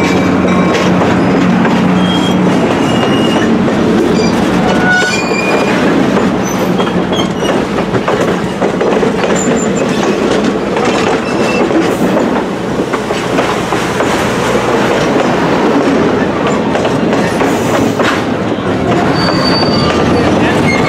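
Passenger train cars rolling past at close range: a steady rumble of steel wheels on rail, with brief high wheel squeals now and then.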